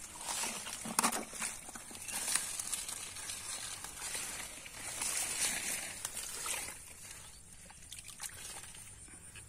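Hands working through shallow muddy water and water hyacinth stems: irregular sloshing, splashing and rustling of leaves, busiest through the first six seconds, then quieter trickling and dribbling of water.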